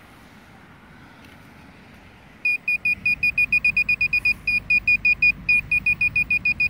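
A handheld GP-Pointer metal-detecting pinpointer beeping rapidly, roughly eight short high beeps a second, starting about two and a half seconds in: it is alerting on a metal target in the dug plug of soil.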